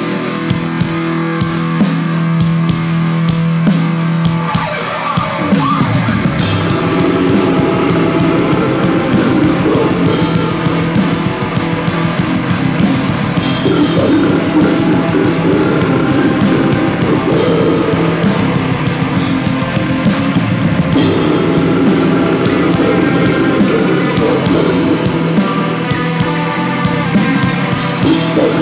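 Black metal band playing live: heavily distorted guitar and bass chords over fast drumming, with a long falling pitch slide about five seconds in.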